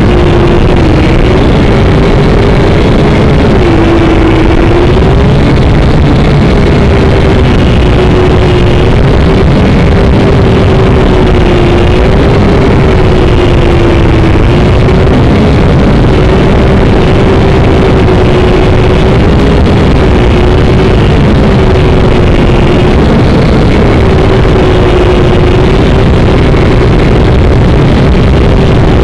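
Syma X5C-1 quadcopter's motors and propellers, heard through the drone's own onboard camera: a loud, steady buzz whose pitch wavers slightly up and down.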